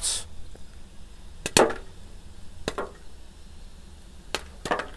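Popcorn kernels popping in hot oil under an upside-down aluminium foil tray on a griddle: about five sharp, scattered pops, a few seconds apart, as popping is just starting.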